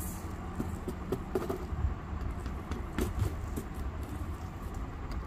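Light scraping and ticking of fingers handling coloured sand and a sand-art board, over a steady low rumble.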